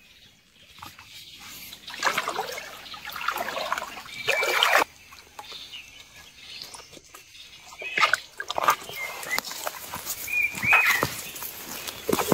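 Shallow creek water splashing and sloshing in bursts as a person wades through it and a ferret swims, with a few short high chirps over the splashing.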